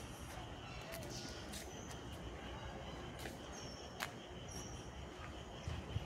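Quiet wooded-park ambience: a steady low hiss with faint insect-like background, a few short high bird chirps a little past the middle, and a couple of light taps.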